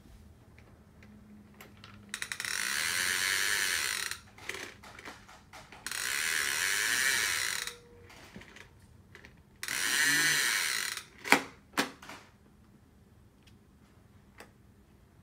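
Little Tikes toy lawn mower making its engine noise: three bursts of rapid clicking rattle, each a second or two long, then two sharp plastic clacks.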